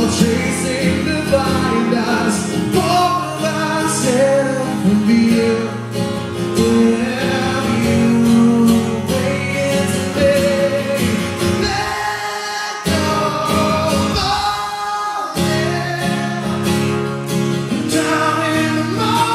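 A live rock band playing a ballad, with a male lead vocal over acoustic guitar, bass and drums. The low instruments drop out briefly twice a little past the middle.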